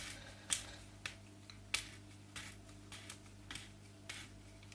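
Parts of an old Hoover Dustette vacuum motor being handled and worked loose by hand during dismantling: irregular light clicks and scrapes, about half a dozen, spread unevenly.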